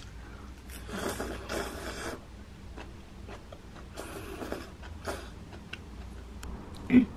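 A person eating soup from a bowl: slurping and sipping broth with some chewing, in two noisy stretches about a second in and about four seconds in, with small clicks between. A short louder knock sounds near the end.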